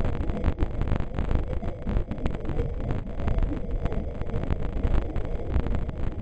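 Artificial 'space sound' made for a Saturn moon: a dense, deep rumble with continuous crackling running through it, starting to fade at the very end.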